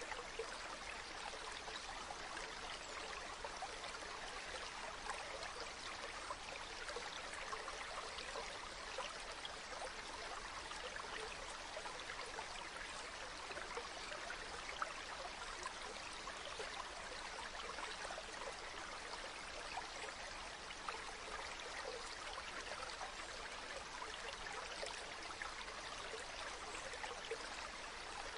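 A small stream of water running and trickling steadily.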